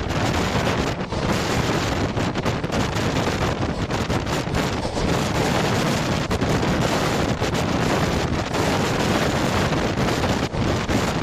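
Strong wind buffeting the microphone: a loud, dense rushing noise with frequent brief dips.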